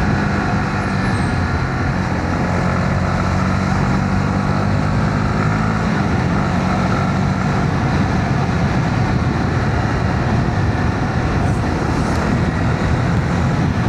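Honda CB125R single-cylinder engine running steadily while riding in traffic, under a constant haze of wind and road noise.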